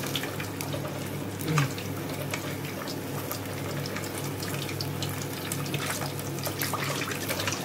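Pork hock deep-frying in a pot of hot oil on its second fry to crisp the skin: steady sizzling and bubbling with scattered crackles and pops.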